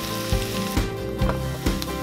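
Shredded potato sizzling in oil on a hot electric waffle maker plate, under background music with a steady beat. The sizzle drops away briefly about a second in.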